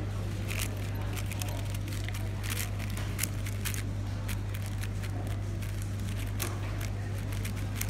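A plastic 4x4 speedcube being turned fast by hand: quick, irregular clicks and clacks as its layers snap round, over a steady low hum.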